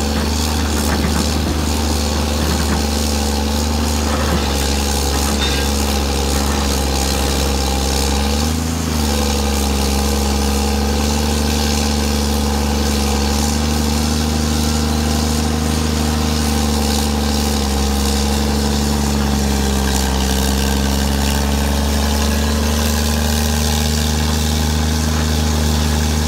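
The uncovered replacement diesel engine of a Samsung SE350LC-2 excavator runs steadily under hydraulic load as the machine digs and swings, with a brief change in its note about nine seconds in.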